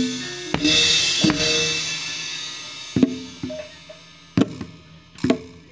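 Javanese gamelan ensemble with drums and a cymbal playing the last bars of a piece. A cymbal crash about half a second in rings and fades, followed by a few last single drum strokes as the music dies away.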